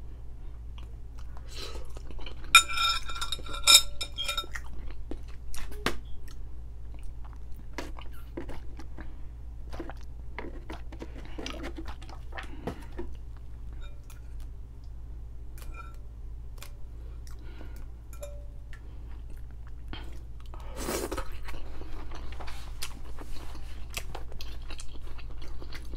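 Close-up chewing of noodles, with occasional clinks of a metal fork against a glass bowl, one ringing briefly about three seconds in, over a steady low hum.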